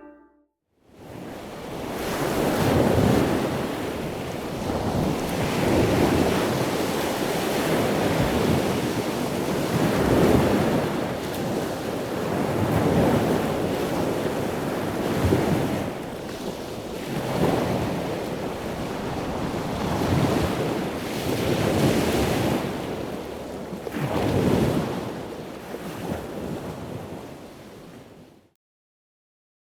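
Sea surf: waves washing in and breaking in a steady series, swelling about every two to two and a half seconds, cutting off suddenly near the end.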